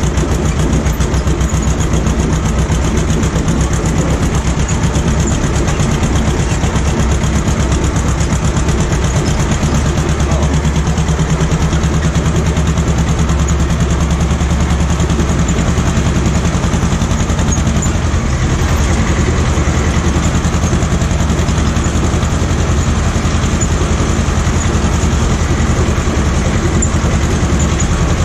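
Ursus C-330M tractor's two-cylinder diesel engine running steadily at an even speed.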